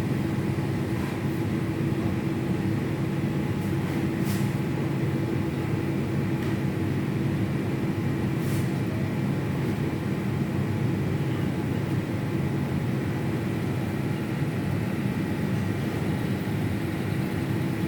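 Ersa ETS 250 wave soldering machine running: a steady mechanical hum with a held low tone, and two faint ticks about four and eight seconds in.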